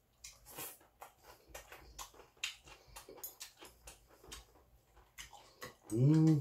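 A man chewing a mouthful of seonji-guk (ox-blood soup), with a run of wet mouth clicks and smacks. Near the end comes a short, loud voiced hum from him.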